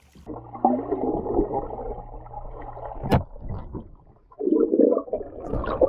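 Muffled water sloshing and gurgling heard from underwater in a pool, with a steady low hum under the first half. There is a sharp knock about three seconds in and a louder churn of water near the end.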